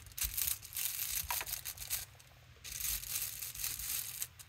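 Hand brayer (rubber roller) rolled across thin art tissue laid on a paint-inked gel printing plate, giving a papery, crackly rustle. It comes in two stretches of rolling with a short break about two seconds in.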